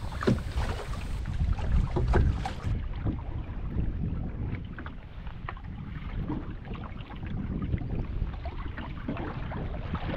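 Wind rumbling on the microphone while a canoe is paddled into a headwind, with scattered splashes and knocks of paddle and water against the hull.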